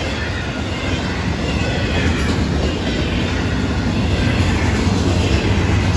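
A freight train's double-stack intermodal well cars rolling past, a steady rumble of steel wheels on rail that grows slightly louder toward the end.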